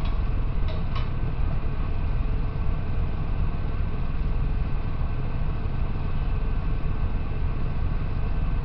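Steady low rumble of kitchen background noise, with two light clicks about a second in.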